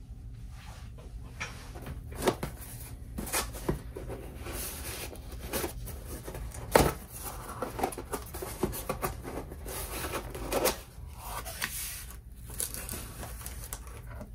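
A mailed package being opened by hand: its packaging rustling and being handled, with scattered irregular taps and clicks and one sharper knock about seven seconds in.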